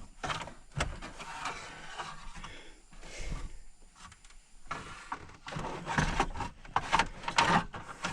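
A car's front dash panel being worked back and forth into place: irregular scraping, rubbing and clicks of the panel against the dashboard, busier over the last few seconds.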